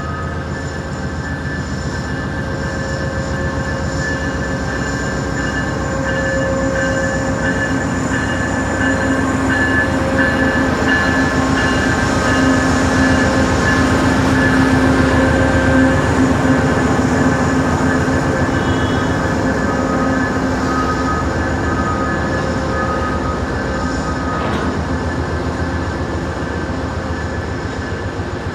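Loaded tank cars of a crude oil freight train rolling past, with steady rumbling wheels and a continuous high metallic wheel squeal on top. The passing grows loudest midway, then eases slightly.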